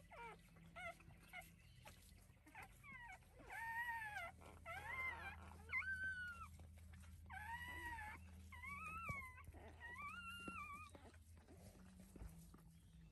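Newborn Anatolian Shepherd × Great Pyrenees puppy crying while its mother licks it: a run of about eight high, squeaky, arching cries, each under a second long.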